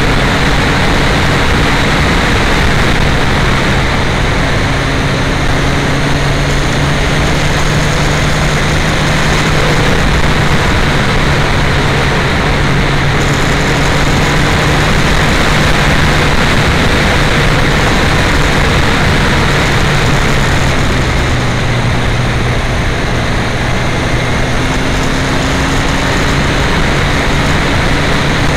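Heavy wind rush on an uncovered action-camera microphone at riding speed, with the Yamaha FZ1's inline-four engine running underneath at a nearly steady pitch that lifts slightly near the end.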